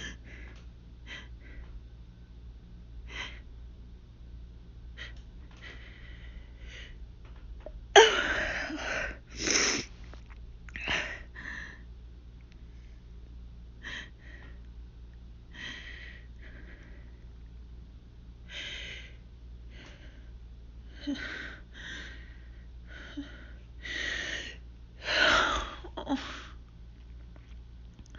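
A woman's hay-fever sneezing fit: short sniffs and catching breaths build up to sneezes. The loudest sneeze comes about eight seconds in, with a second close behind, and another run of sneezes near the end.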